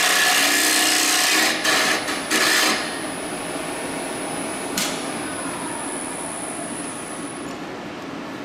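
Hollowing tool cutting into a bowl spinning on a wood lathe: a loud, steady scraping hiss that breaks off about a second and a half in, followed by a few short cutting bursts. The lathe then runs on more quietly with a thin high whine that stops near the end, with one click in the middle.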